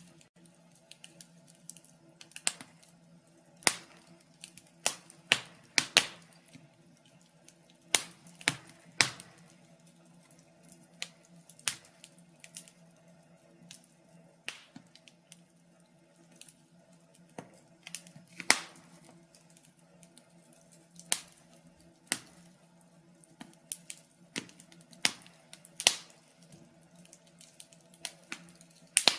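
Wood fire in a fireplace crackling: sharp, irregular pops and snaps, roughly one a second and uneven in loudness, over a faint low steady hum.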